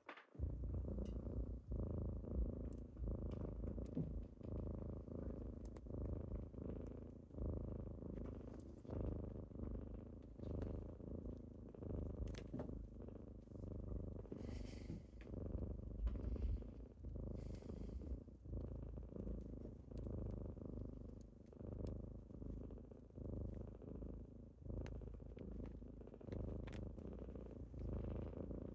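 Domestic kittens purring: a continuous low rumble that swells and eases in level.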